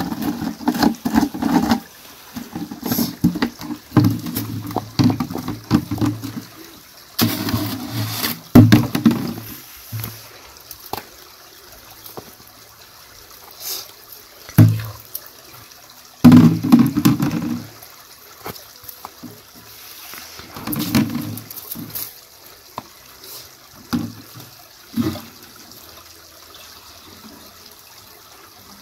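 Water gurgling and glugging into plastic jerrycans as they are dipped into a stream and filled. It comes in irregular bursts of a second or few, with quieter gaps, and fewer and shorter bursts in the second half.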